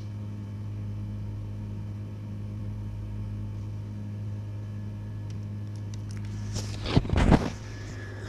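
Steady low electrical-sounding hum, with a brief loud rush of rumbling noise about seven seconds in.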